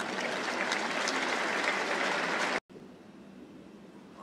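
Tennis crowd applauding after a point, the clapping stopping abruptly about two and a half seconds in and leaving a quieter crowd hush.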